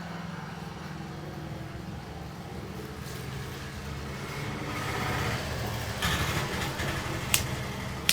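A motor vehicle engine running close by, a low steady rumble that grows louder around the middle, with two sharp clicks near the end.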